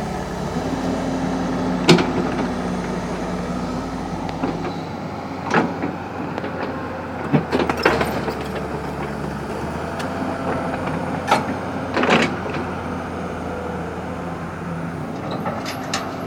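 Excavator's diesel engine running steadily, with a sharp knock every second or few.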